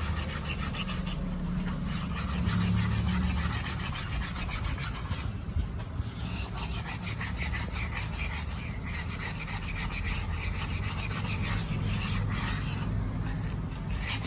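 Sandpaper scrubbed in rapid back-and-forth strokes inside a Hero Splendor motorcycle's brake drum, scouring out the packed dirt that makes the brake squeal.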